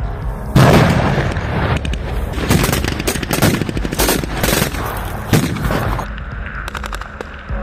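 Automatic gunfire from machine guns and rifles in rapid bursts, starting about half a second in and dense for several seconds, then thinning to scattered shots near the end.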